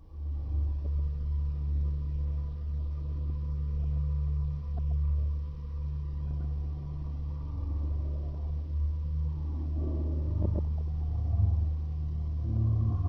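Low, steady rumbling drone with a faint high tone held above it, starting abruptly; a few faint knocks near the end.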